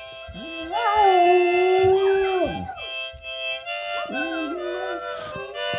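A dog howling along to a harmonica. One long howl rises about a second in, holds steady and falls away; a shorter wavering howl follows near the end, all over a held harmonica chord.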